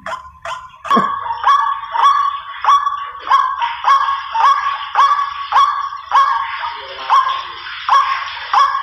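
White-breasted waterhen (ruak-ruak) calling a fast run of harsh notes, used as a hunting lure call. Quicker, softer notes give way about a second in to louder notes at roughly one and a half a second.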